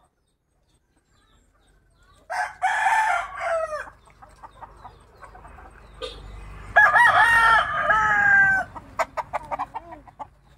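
Rooster crowing twice: once about two seconds in and again about seven seconds in, each crow lasting well over a second.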